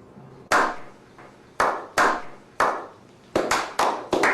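Sharp hand claps. A few come singly, spaced about half a second to a second apart, then they come faster near the end.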